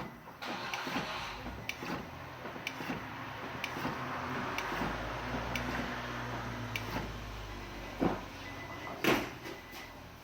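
Brake pedal being pumped repeatedly to push fluid out through a one-way bleeder valve: short clicks about once a second, with two louder knocks near the end.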